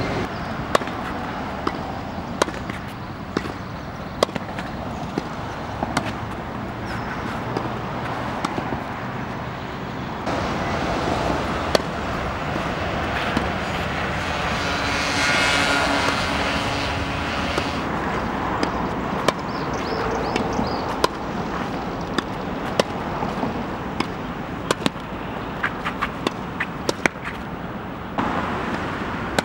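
Tennis balls struck by a racket and bouncing on an outdoor hard court: sharp pops every second or so, over a steady background hum that swells in the middle.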